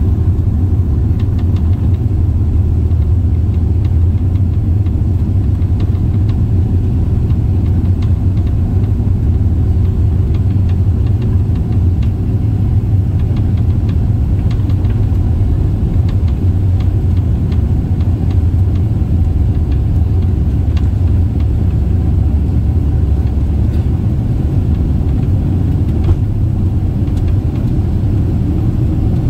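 Cabin noise of a Boeing 767-400ER taxiing: a steady low rumble from its GE CF6 engines at taxi power and the rolling airframe, with faint scattered ticks.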